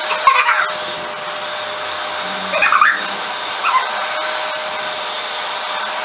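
Vacuum cleaner running steadily, a constant hiss with a fixed high whine, sucking a girl's hair up into a ponytail-binder attachment on the end of the hose.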